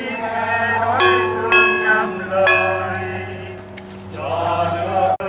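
Hand-held gong and drum struck in a slow procession beat: three ringing strokes in the first half, the first two half a second apart, over a steady low hum, with voices chanting briefly near the end.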